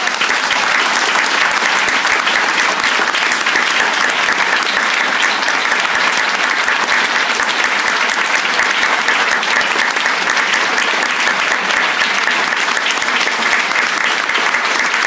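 Concert audience applauding, dense and steady clapping.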